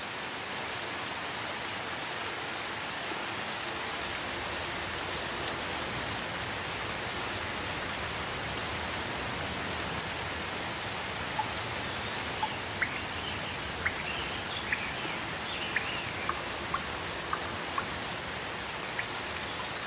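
Steady rain falling, an even hiss of many drops. In the second half a run of about a dozen sharper, louder ticks stands out above it.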